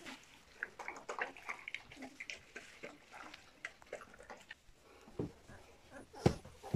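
A litter of young American Collie puppies making faint squeaks and whimpers among scattered small clicks and rustling. A single sharper knock sounds near the end.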